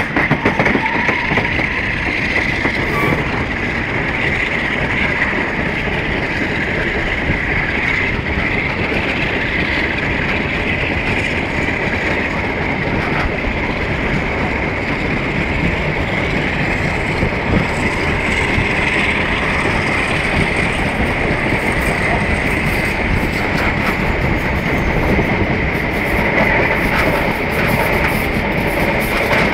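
Diesel-hauled passenger train running steadily, heard from an open coach window behind a Class 47 locomotive: a continuous rush of wheels on the rails mixed with wind, with a steady high hum running through it.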